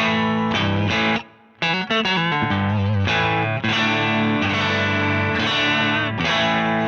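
Electric guitar played through a Danelectro Transparent Overdrive V2 pedal: overdriven chords ringing out and changing every second or so, with a short stop about a second in before playing resumes.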